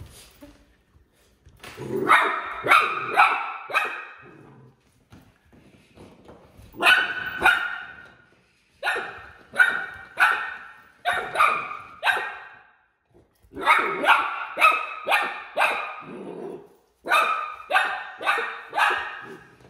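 Puppy barking in quick runs of three to six high, sharp yaps, with short pauses between the runs.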